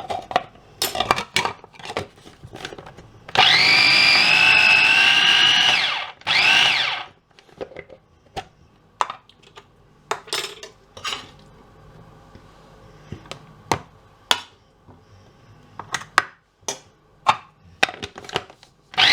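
A small electric blender's motor whirring for about three seconds, then a second short pulse, blitzing a cooked chicken liver and bacon mixture smooth. Sharp clicks and knocks come before and after the runs.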